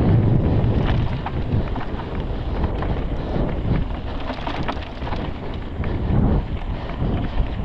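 Wind buffeting the microphone while a mountain bike rolls fast over dry dirt trail, the tyres crunching with scattered small clicks and rattles from gravel and the bike. Louder for about the first second, then easing a little.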